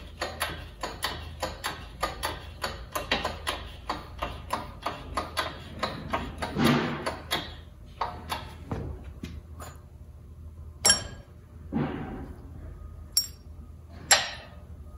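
Hand-pumped hydraulic shop press working as its ram pushes a rubber suspension bushing into a lower wishbone: a quick, even run of clicks about four a second that slows and stops about two-thirds of the way through. Then a few sharp metal clinks as the socket and parts are handled.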